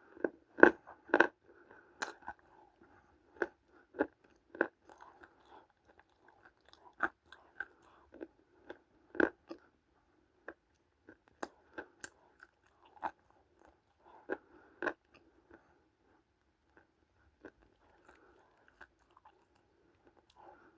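Close-up crunching as dry lumps of multani mitti (fuller's earth clay) are bitten and chewed, sharp brittle cracks over softer grinding. The bites come quickly in the first few seconds, then thin out to occasional crunches.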